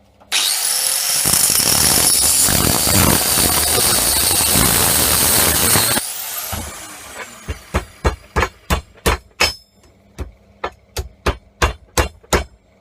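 Power cutting tool, most likely an angle grinder, cutting into the steel protection sleeve on a MIG torch's swan neck for about six seconds with a steady high whine, then winding down with a falling whine. It is followed by a run of sharp metal taps, about two to three a second.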